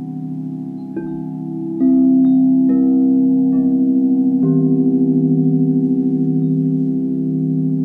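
White frosted crystal singing bowls ringing in overlapping sustained tones with a slow pulsing beat. Five new notes are struck about a second apart, the loudest about two seconds in, and ring on.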